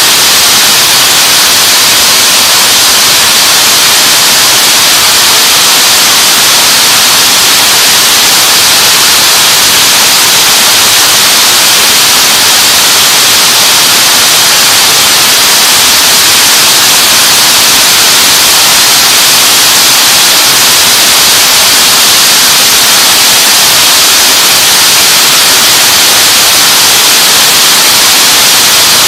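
Rows of bobbin braiding machines running together in a factory hall: a loud, steady hiss-like noise with no rhythm that can be picked out.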